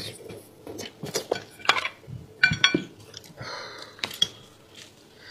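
Gloved hands pulling apart a spicy braised sheep's head over a ceramic plate: a run of sharp clicks and knocks as bone and meat hit the plate, a few of them clinking with a short ring about halfway through.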